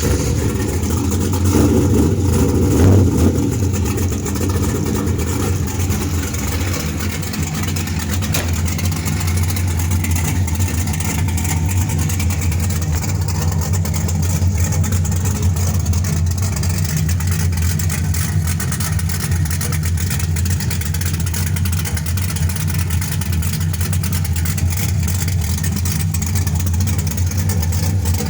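Ford Mustang engine idling just after a cold start. It runs a little louder for a couple of seconds near the beginning, then settles into a steady idle.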